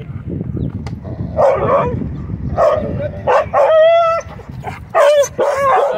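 A dog whining and yipping in a series of short, high calls, with one longer, steady whine a little past the middle.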